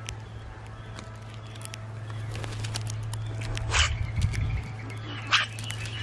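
Common grackles at a seed tray: two harsh, scratchy calls, one about four seconds in and one a second and a half later, over light clicking of beaks picking through seed.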